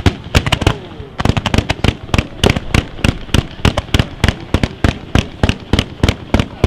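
Professional fireworks: a barrage of tailed comets firing in quick succession, heard as a rapid run of sharp bangs, about four or five a second.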